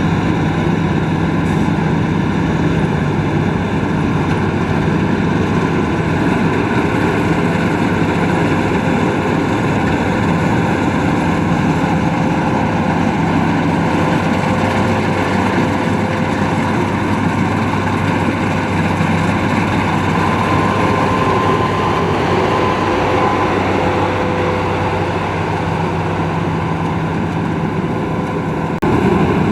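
Rice combine harvester running steadily under load, its engine and machinery making a loud continuous hum with a few held tones.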